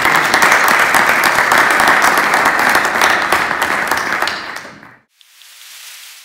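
Audience and panelists applauding, a dense steady clapping that dies away and is cut off about five seconds in, followed by a faint hiss that swells and fades.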